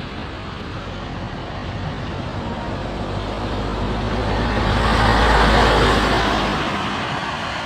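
A road vehicle driving past: engine rumble and tyre noise swell to a peak about five seconds in, then fade away.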